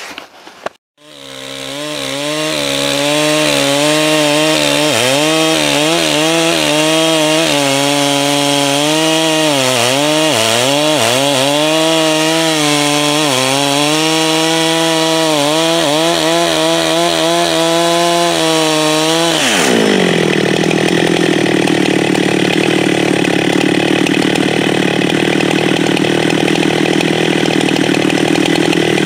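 Husqvarna chainsaw running at full throttle, cutting into the base of a large hard maple trunk, its engine pitch wavering as the bar bogs and recovers in the wood. About two-thirds of the way through the tone changes abruptly to a harsher, noisier sound.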